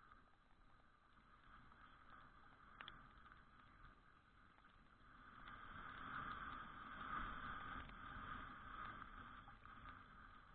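Faint riding noise from a Suzuki Address V125G scooter on the move: an even haze of wind and road noise that swells about halfway through.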